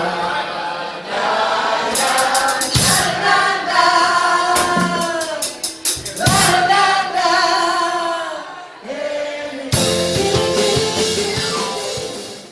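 Live pop-rock cover by a keyboard-and-drums duo: a woman sings over keyboard and drum kit with cymbal crashes. The drums hit hard again about ten seconds in, then the song fades out at the end.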